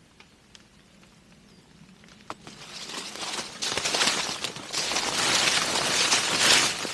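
Footsteps rustling and crackling over rough ground, with a few small clicks at first, then growing louder and denser from about two and a half seconds in.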